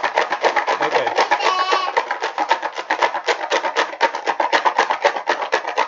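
Paper lottery tickets rattling inside a clear plastic box shaken hard and fast to mix them: a rapid, even clatter of about ten hits a second. A brief high voice sound about one and a half seconds in.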